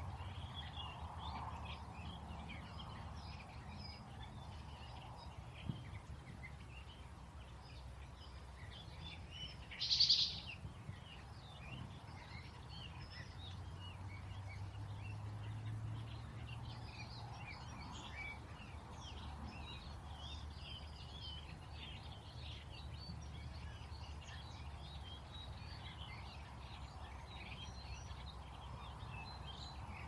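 Small songbirds chirping and calling on and off over a steady low outdoor rumble. One louder, brief call stands out about ten seconds in.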